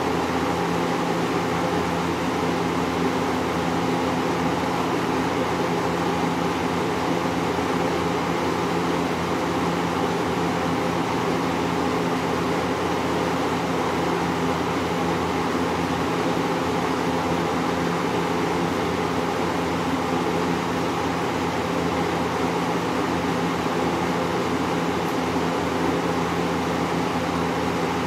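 1979 Kmart 20-inch box fan, model K-223, running steadily: an even motor hum under a rush of air from the blades. The fan is freshly cleaned and oiled, and the motor is in good condition.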